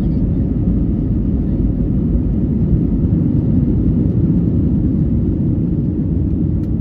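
Airbus A320-200 takeoff roll heard from inside the cabin: the engines at takeoff thrust and the rumble of the rolling aircraft, a steady, loud, deep roar.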